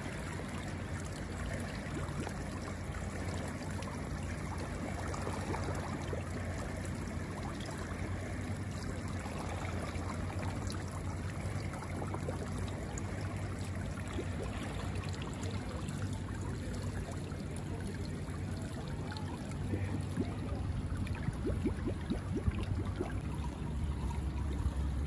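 Steady rushing of water, with a low steady hum underneath; it grows a little louder near the end.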